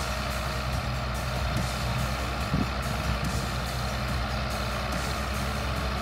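New Holland CR 10.90 combine harvester running at work, a steady engine drone with a constant mechanical whine over it, the Zetor tractor's engine running alongside.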